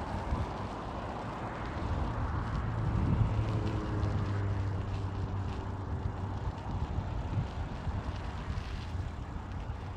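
Wind rumbling on the microphone, with a steady engine drone from about two seconds in to near the end that sinks slightly in pitch.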